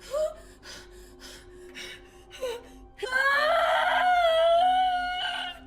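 A person wailing in distress: short whimpering cries, then a long, loud, high-pitched wail starting about three seconds in and held for over two seconds, over a low, steady music drone.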